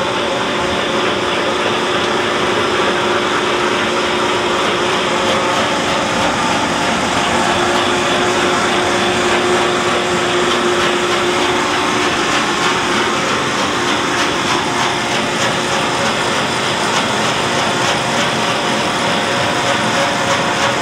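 Tractor running steadily while pulling a Lewis Brothers windrower that churns and throws chicken litter into a windrow: a constant mechanical drone with a few faint steady tones.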